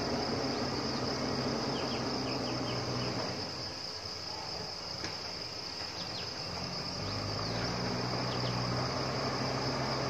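A steady, high insect drone over the low hum of a JCB backhoe loader's diesel engine working on the road. The engine hum eases off about three seconds in and comes back up about seven seconds in.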